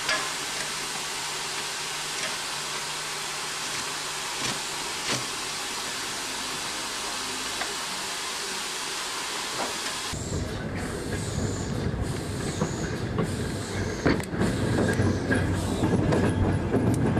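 Steady hiss at the standing LSWR B4 dock tank steam engine. About ten seconds in it gives way to the engine running with its train: a low rumble with wheels knocking over rail joints, growing louder toward the end.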